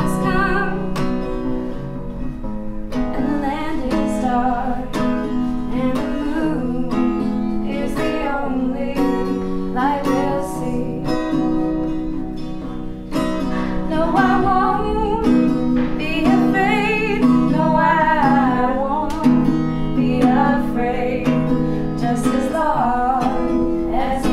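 Acoustic guitar strummed in a steady rhythm, with a voice singing a melody over it from about three seconds in.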